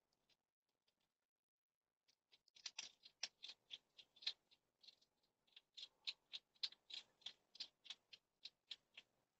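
Hedgehog eating from a food bowl: crisp chewing crunches, about three or four a second, starting about two seconds in.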